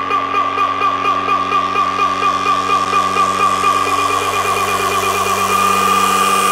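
Electronic dance music build-up: a sustained synth chord with a fast warbling wobble that quickens, and a hiss sweep rising toward the end, leading into a dubstep drop.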